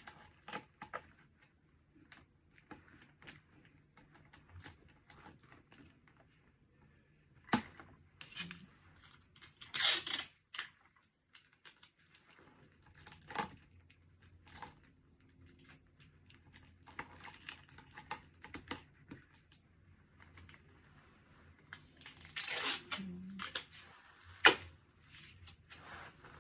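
Gift-basket materials being handled: intermittent tearing and crinkling with scattered light knocks and clicks. The loudest bursts come about ten seconds in and again a couple of seconds before the end.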